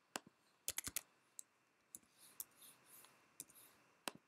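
Faint clicks of a computer mouse and keyboard as a text label is typed: a quick cluster of clicks just before one second in, then single clicks spread out through the rest.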